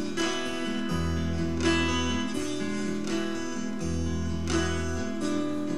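A live band playing an instrumental passage between vocal lines, led by a strummed acoustic guitar with low held notes changing every second or two underneath.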